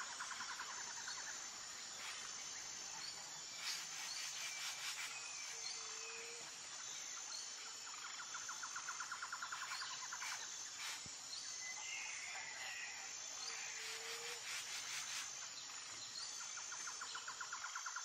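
Faint outdoor nature ambience of insects and birds: a steady high pulsing, several bouts of rapid trilling lasting a second or two each, and a few short chirps.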